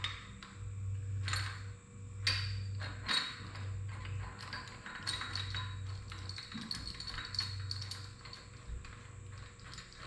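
Irregular metallic clicks, taps and pings of hand tools working a two-jaw gear puller on a tractor engine's crankshaft pulley, over a steady low hum.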